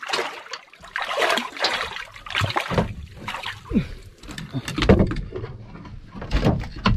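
Water splashing around a small fishing boat in irregular bursts, with knocks on board.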